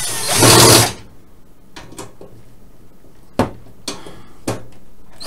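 Cordless drill-driver briefly running as it drives a case screw into a metal PC case's hard drive caddy, stopping about a second in. A few light clicks of metal parts being handled follow.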